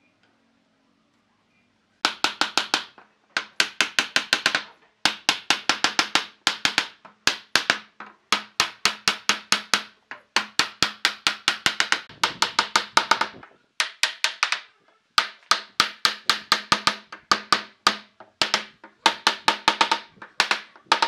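Hammer striking a wooden block held against the edge of a pine door frame to drive its joints home. It sounds as quick runs of light knocks, about ten a second, starting about two seconds in and broken by short pauses.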